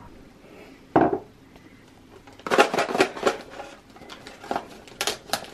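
A single thump about a second in, then wrapping paper crinkling and tearing in quick bursts as a small gift-wrapped box is opened by hand.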